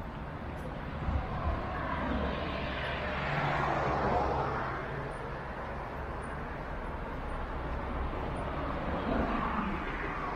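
Outdoor street ambience with a vehicle passing: its noise swells and fades about four seconds in, and a second one rises near the end, over a steady low hum.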